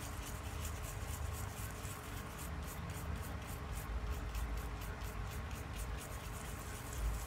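Toothbrush scrubbing a TV circuit board wet with alcohol, quick back-and-forth strokes about five a second, cleaning the solder pads after the scan IC has been removed. The strokes stop about six seconds in.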